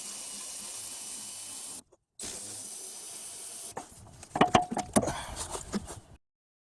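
A steady hiss, broken once by an edit, then a quick run of sharp metallic clicks and knocks from tools and brake parts being handled.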